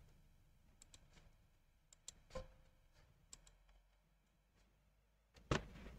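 A few faint computer mouse clicks over low room tone, with one louder sharp click or knock near the end.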